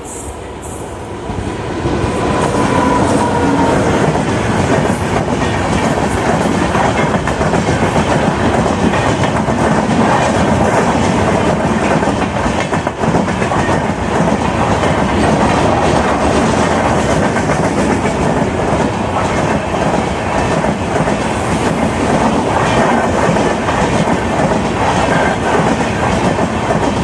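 An express train of LHB coaches hauled by a WAP7 electric locomotive, passing at speed: a loud, steady rumble with the clickety-clack of wheels over the rails, swelling up about two seconds in and then holding.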